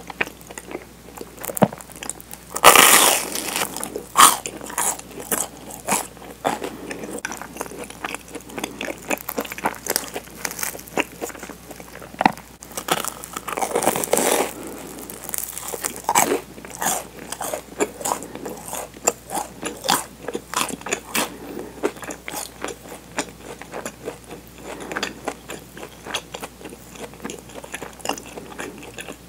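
Close-miked bites into a crisp toasted sandwich bread filled with Nutella, with a loud crunch about three seconds in and another around the middle, and steady crunchy chewing between and after.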